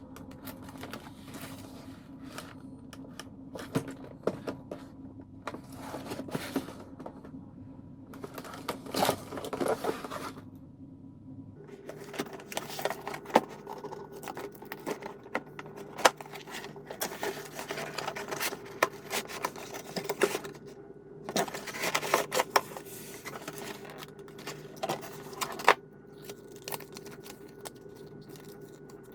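Hands unpacking a boxed toy robot: irregular clicks, scrapes and rustles of packaging being handled, over a steady low hum that shifts higher in pitch about a third of the way through.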